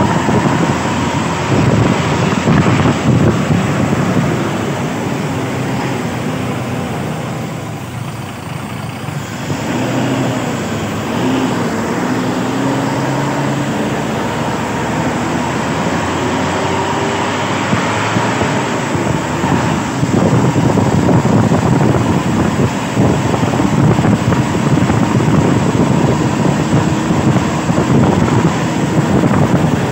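Buses running in close traffic: engine noise with tyre and road noise, the engine pitch dipping and then rising as they pull away about ten seconds in.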